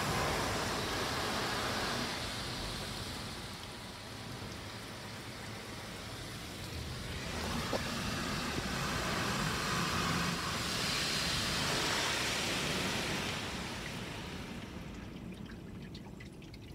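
Ryko Soft Gloss Max automatic car wash spraying water over a car, heard from inside the cabin as a steady hiss that swells, dips and swells again, then fades near the end.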